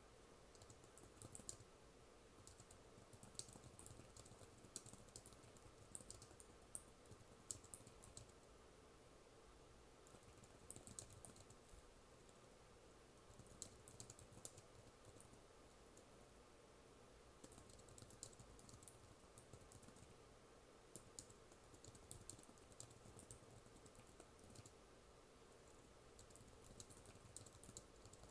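Typing on a computer keyboard: quick runs of key clicks in bursts of a second or a few seconds, with short pauses between them.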